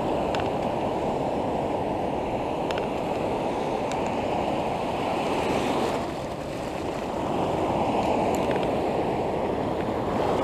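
Ocean surf washing in around the legs: a steady rush of foaming whitewater that eases briefly about six seconds in and then builds again, with a few faint clicks.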